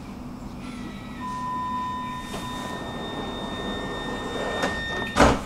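Metro train's sliding passenger doors closing. A steady high warning tone sounds over the car's low hum for about four seconds, then the doors meet with a loud thud near the end.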